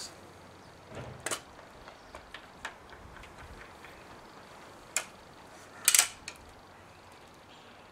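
Break-barrel air rifle being handled and cocked: a few sharp mechanical clicks, with the loudest cluster of clicks about six seconds in as the barrel is broken open.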